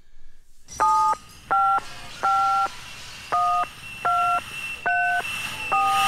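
Touch-tone phone keypad dialing seven digits: seven short two-tone beeps, about one every three-quarters of a second, over a faint phone-line hiss.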